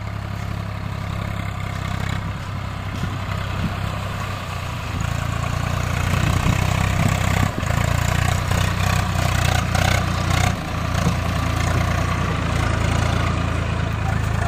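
Swaraj 744 FE tractor's three-cylinder diesel engine running at a steady speed as the tractor drives, getting louder about a third of the way in as it comes closer.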